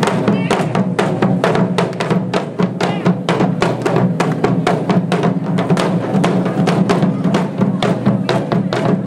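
Japanese taiko drums played in a fast, steady rhythm, about five sharp strikes a second, over a sustained low tone.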